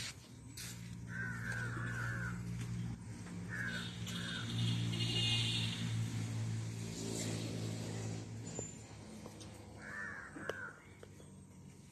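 Crows cawing in short bursts, a few calls at a time in three groups, over a steady low drone like a running engine.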